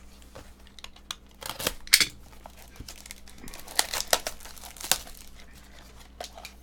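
Hands opening a small cardboard trading-card box, with irregular crinkling and tearing of its wrapping and cardboard. The crackles come in two clusters, the sharpest about two seconds in.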